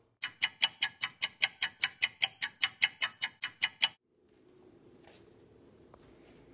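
Ticking clock sound effect: even, sharp ticks about five a second for nearly four seconds, starting and stopping abruptly. A faint steady room hum follows.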